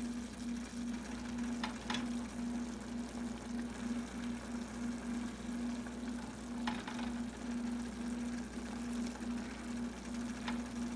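A steady low mechanical hum, like a small motor, pulsing a couple of times a second, with a few faint clicks.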